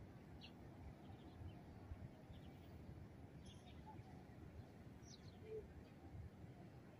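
Near silence: a few faint, short bird chirps over a low, steady background rumble.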